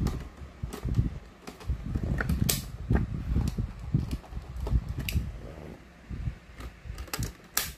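Plastic clicks, snaps and handling thumps from toy transformation-belt buckles (DX Powered Builder Buckle and Boost Buckle) being handled and fitted together, with a dozen or so irregular sharp clicks and a louder pair of snaps near the end.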